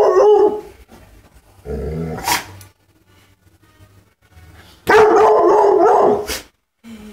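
Hound-mix dog howling: a long drawn-out howl that ends under a second in, a shorter, lower vocal sound about two seconds in, then a second long howl lasting about a second and a half from around five seconds in.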